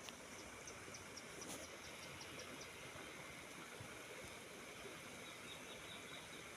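Faint outdoor ambience with insects chirping: a run of short, high chirps at about four a second early on, then a second, slightly lower run around the middle.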